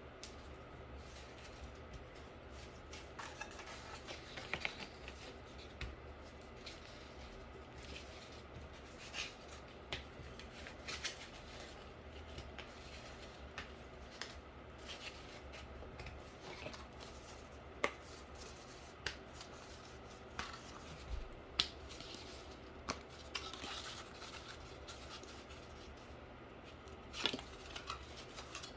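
Cardboard being bent and curled by hand into a round port: scattered faint creasing crackles, scrapes and rubbing, over a low steady hum.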